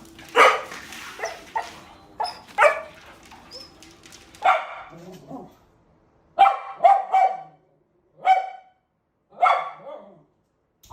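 A dog barking repeatedly: about a dozen short barks, some in quick pairs, with pauses between them.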